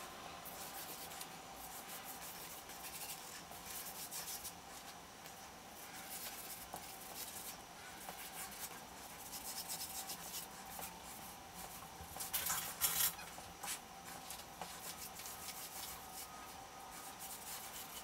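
Felt-tip marker drawing on paper: quick repeated strokes rubbing across the sheet, with a louder cluster of strokes about twelve to thirteen seconds in.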